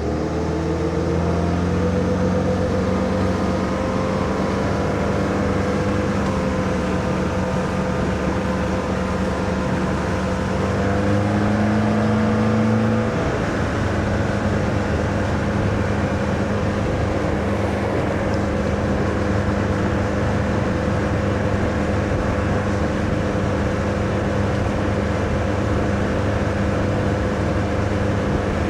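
MerCruiser 120 sterndrive's four-cylinder inboard engine pulling the boat up to cruising speed: the engine note climbs as the throttle opens and keeps rising slowly, drops a step about 13 seconds in, then runs steady, held below three-quarter throttle for outdrive break-in.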